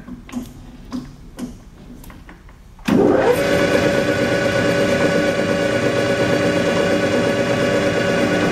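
A few light knocks, then about three seconds in the Clausing 5914 metal lathe is switched on and its spindle and 3-jaw chuck run steadily under power, a constant machine hum with several steady tones.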